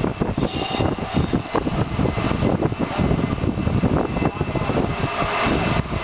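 Manual chain hoists hauling a gas turbine rotor, their chains rattling and clicking over and over, over a steady industrial machinery roar.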